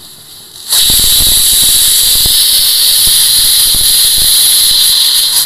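Stovetop pressure cooker whistling: steam forces past the weight in one long, loud shriek of about five seconds, starting under a second in, with a high whistle over the hiss. The cooker has come up to pressure, and this whistle is one of the three counted for cooking the vegetables.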